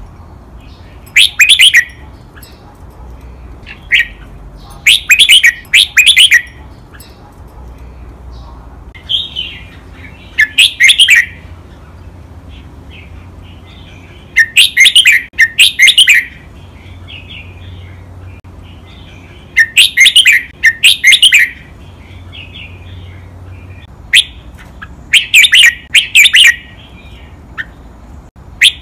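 Red-whiskered bulbul singing loud, short phrases of rapid notes every few seconds, many of them doubled, with soft twittering between phrases.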